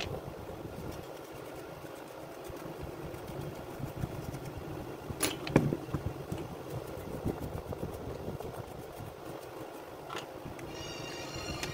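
Plastic housing parts of a disassembled electric chainsaw being handled and set down over a steady low background hum, with a couple of sharp knocks a little past the middle and another near the end.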